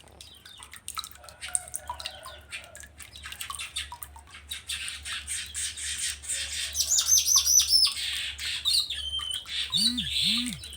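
Streaked weaver (manyar jambul) singing: a rapid, dry chattering of clicks and short chirps that builds into a run of about five quick high falling notes and a buzzy phrase. Two low hooting notes sound near the end.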